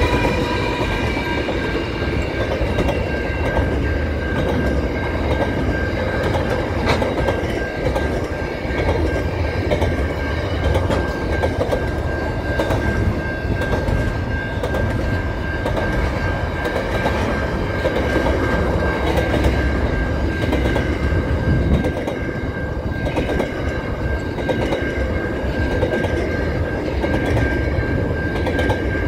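A Pacific National freight train of double-stacked container wagons rolling past at speed, with a steady low rumble and wheels clacking over the rail joints. A falling, multi-note tone fades out in the first few seconds as the locomotives pass. A steady high tone sounds throughout.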